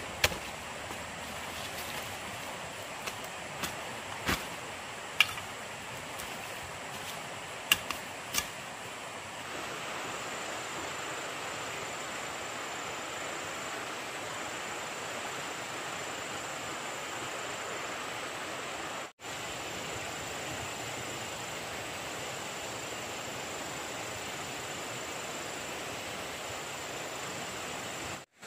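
Steady rushing of water, with several sharp knocks in the first eight seconds.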